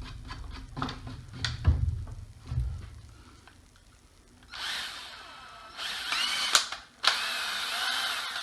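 Power drill boring small pilot holes in wood. After a few clunks, the motor runs in two stretches from about halfway through, its pitch rising and falling as it bites into the board.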